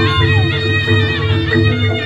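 Jaranan accompaniment music: a nasal reed pipe plays a sliding melody over a steady low drum pulse and a held mid-range note.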